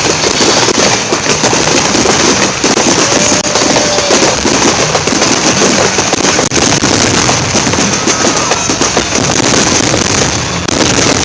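Fireworks going off in a dense, continuous barrage: many bangs and crackles overlapping with no pause between them, loud throughout.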